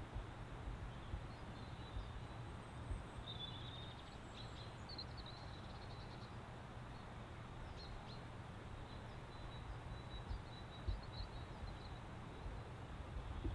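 Faint outdoor ambience: a steady low hiss and rumble, with scattered faint high chirps of small birds in two short spells.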